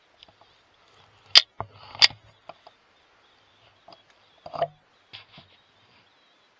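A string of sharp clicks and light knocks, two of them much louder, about a second and a half and two seconds in, with smaller ticks after and a dull knock a little past halfway.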